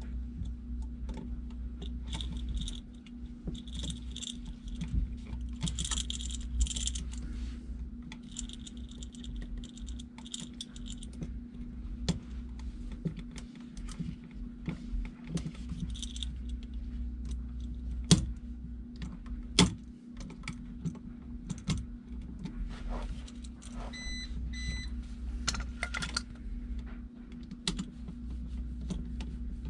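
Screwdriver turning and scraping on the terminal screws of a 20 amp electrical receptacle held in hand, tightening them down on the wires, with many small metallic clicks and clinks and two sharper clicks past the middle. A steady low hum runs underneath.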